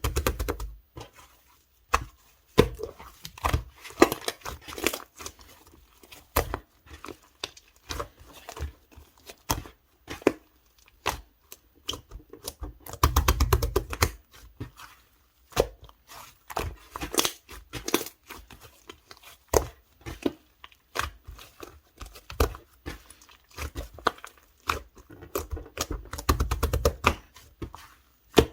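Hands squishing, poking and stretching slime, giving a run of sharp clicks and pops, with two denser bouts of crackling about halfway through and again near the end.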